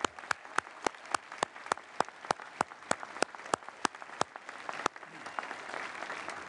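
Audience applause. One person's loud, even claps, about three a second, stand out over softer crowd clapping. The even claps stop about five seconds in, and the diffuse applause carries on.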